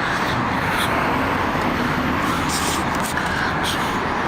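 Steady rush of road traffic noise.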